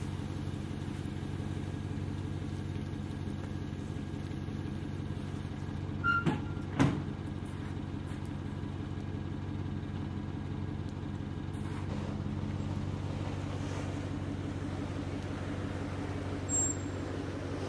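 Chevrolet Silverado pickup's engine idling steadily, with a couple of sharp knocks about six to seven seconds in.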